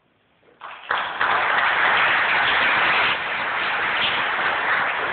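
Audience applauding, starting suddenly about a second in after a moment of near silence and keeping up a dense, even clatter of many hands.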